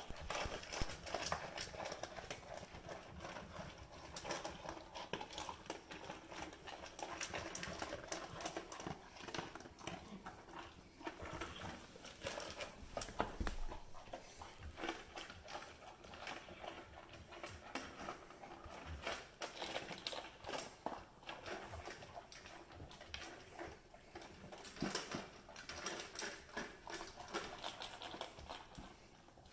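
Golden retrievers eating dry kibble from stainless steel bowls: steady, irregular crunching and clicking of food against metal.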